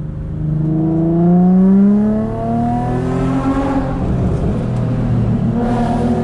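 Infiniti G35's 3.5-litre V6 heard from inside the cabin, revving up as the car accelerates, its pitch rising over about two seconds and then holding steady. A brief rush of noise comes about three seconds in and again near the end.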